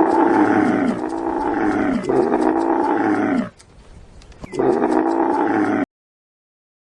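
A large animal calling loudly: three drawn-out calls in a row, each falling in pitch, then after a short pause one more that cuts off abruptly.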